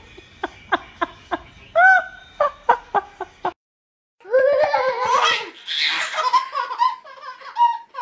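A string of short vocal bursts, about three a second with one longer pitched call among them, cuts off suddenly. About a second later a baby belly-laughs loudly in long breathless bursts.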